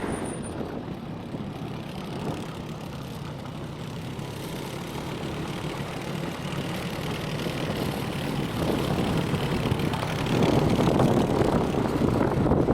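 An engine running steadily with a low hum, growing louder over the last few seconds.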